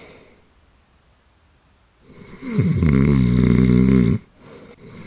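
One loud, drawn-out snore starting about two seconds in and lasting about two seconds. Its pitch drops sharply at the start, then holds steady with a slight wobble. It is exaggerated and deep, like a roommate's heavy snoring.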